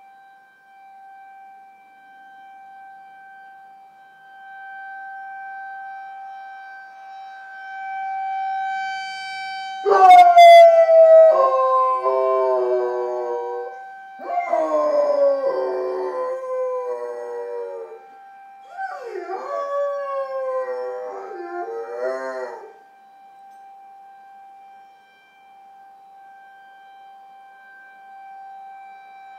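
Rhodesian ridgeback puppy howling along with a town emergency siren. The siren holds one steady tone throughout and swells over the first ten seconds. About ten seconds in the dog joins with three long howls, each sliding down in pitch, the last one wavering, then she stops while the siren goes on.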